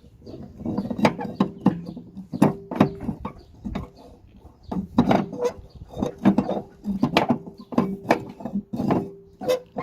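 Irregular metal clanks and knocks, in quick clusters, as a steel wheel brace is worked into the spare-wheel winch under a Ford Transit van. A faint steady hum runs underneath.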